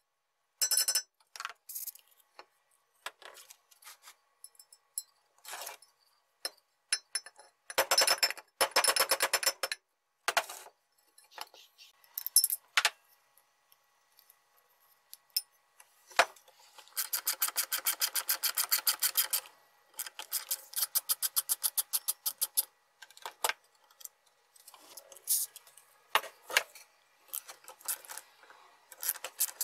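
Hand tools working the metal parts of an electric chainsaw's motor and gear housings: runs of rapid, evenly spaced scraping and sanding strokes on metal, with scattered clicks and taps of tools between them.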